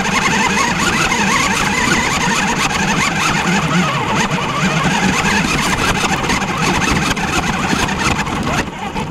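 Radio-controlled car driving across grass, heard from on board: its motor and drivetrain running loud and steady with a wavering whine, stopping shortly before nine seconds in.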